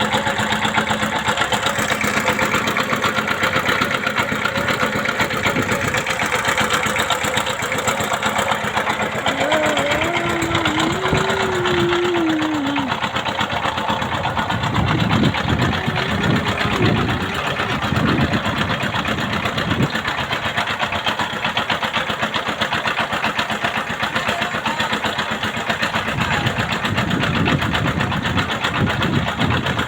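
A boat's engine running steadily with a fast, even chugging rattle.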